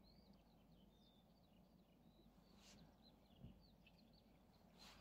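Near silence with faint birdsong: scattered short chirps from small birds. A soft thump comes about three and a half seconds in.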